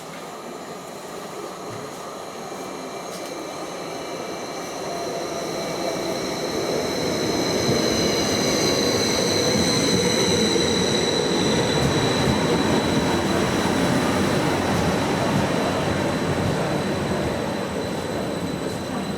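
A train running along the platform road, its rumble growing louder over about eight seconds, holding, then easing slightly toward the end, with several high-pitched whines over it.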